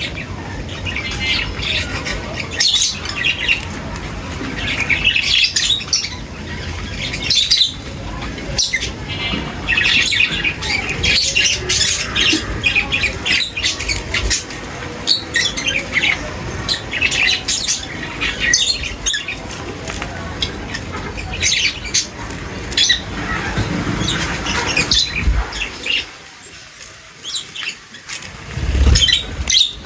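A crowd of birds chirping and calling over one another in quick, overlapping high notes, with a steady low background rumble beneath; the calling thins out briefly near the end.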